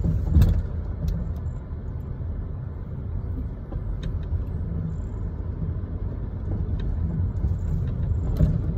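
Car moving slowly, heard from inside the cabin: a steady low rumble of engine and tyres, with one short thump about half a second in.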